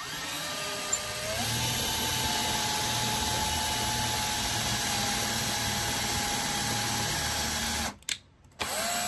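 Milwaukee cordless drill-driver running a twist bit through drywall into a wood stud. Its motor whine rises in pitch about a second in and then holds steady. It stops near the end, gives one short blip, and starts again.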